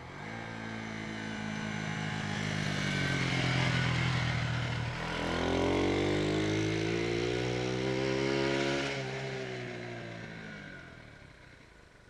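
A 125cc single-cylinder four-stroke motorcycle of the Honda CG125 type rides past. Its engine note grows louder as it approaches, dips in pitch as it passes about five seconds in, then climbs as the bike accelerates away round a hairpin bend, and fades out near the end.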